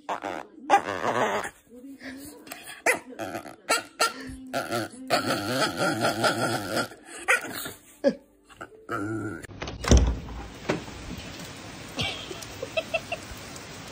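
A puppy grumbling and growling playfully in short bursts for the first nine seconds or so. A single sharp thump comes about ten seconds in, followed by a quieter stretch.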